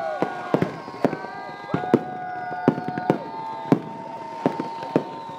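A fireworks display going off, with sharp bangs about every half second over several overlapping whistling tones that each hold a pitch and then drop away.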